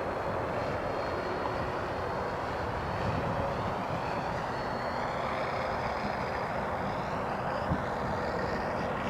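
FreeWing P-51D Mustang radio-control model flying low on its landing approach: the steady drone of its motor and propeller, with a faint high whine that slowly bends up and down in pitch as it passes.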